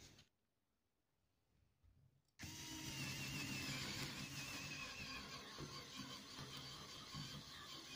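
Near silence for about two seconds, then an electric drill starts abruptly and runs steadily as a twist bit bores into softwood, its motor whine wavering slightly under the load.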